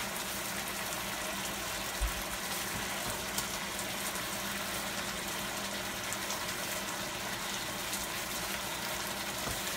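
Shrimp in coconut sauce simmering in a frying pan, a steady sizzling and bubbling.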